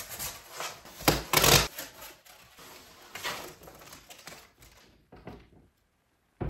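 Packaging being pulled off a full-length mirror as it is handled: rustling and scraping of cardboard and foam sheet, with a sharp knock about a second in and the loudest scrape just after.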